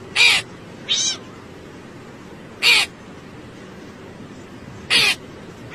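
Short, harsh animal calls over a steady background hiss: three loud ones about two and a half seconds apart, with a fainter one about a second in.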